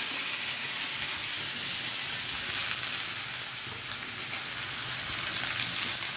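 Chopped bottle gourd and soaked chana dal sizzling steadily as they fry in hot oil in a metal kadai, the oil tempered with cumin, mustard seed, fenugreek and asafoetida.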